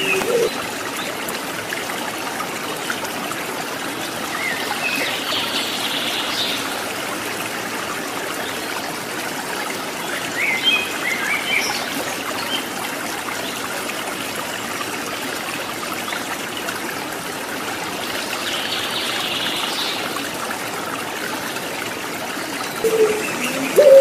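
Steady trickling, babbling water with a few faint high bird chirps now and then. Near the end a ringneck dove's low coo begins.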